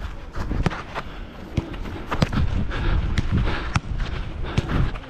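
Running footsteps on artificial turf and several sharp knocks of a football being kicked, over a low rumble of wind and movement on a body-worn camera.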